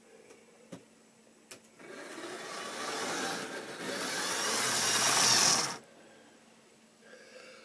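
Model railway diesel locomotive, a Class 37, running along the track: its electric motor whirring and its wheels rumbling on the rails, growing louder as it comes close and cutting off suddenly just before the end. A couple of faint clicks come before it.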